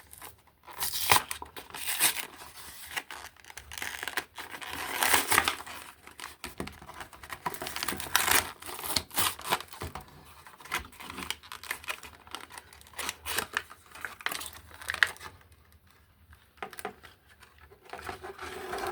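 A toy's cardboard-and-plastic blister package being torn and crinkled open by hand, in irregular bursts of tearing with a quieter stretch near the end.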